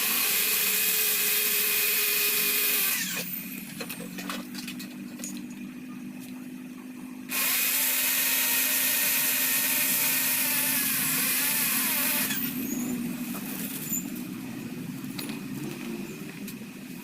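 Power tool running in two bursts, about three seconds and then about five seconds, each ending in a falling whine as it spins down, while the AC compressor's magnetic clutch plate is being fitted.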